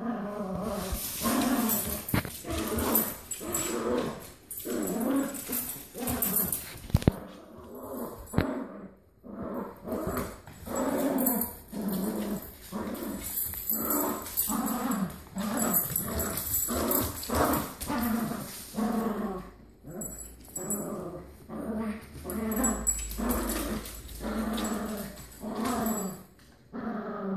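Dogs play-growling over and over while tugging at a toy between them, in short bouts about once a second. There is a single sharp tap about seven seconds in.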